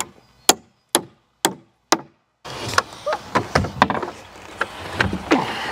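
A framing hammer drives a nail into a pine 2x4 with five sharp strikes, about two a second. About two and a half seconds in, this gives way to an irregular clatter of wooden knocks and thumps as framing lumber is handled.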